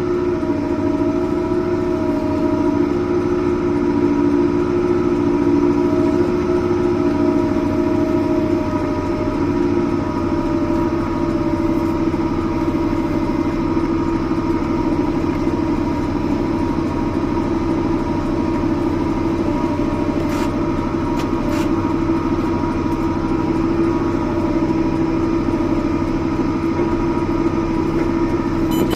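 Diesel farm machinery running steadily under load while chopping forage: an even engine drone with a constant whine in it that shifts slightly about a third of the way through.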